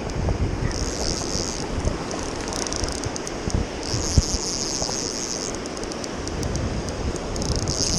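Rushing river rapids and wind buffeting the microphone. Over them come four bursts of a high, fast clicking buzz, each about a second long: the click ratchet of a Cabela's RLS+ fly reel turning.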